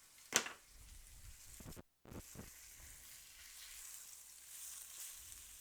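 Breaded chicken frying in butter in a pan, a faint steady sizzle, with a single sharp knock near the start and a few small clicks a couple of seconds in. The sound cuts out completely for a moment about two seconds in.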